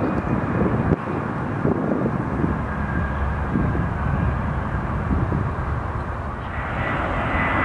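Jet airliner's engines rumbling as it slows on the runway after landing. About six and a half seconds in, a steady high whine from another approaching jet comes in.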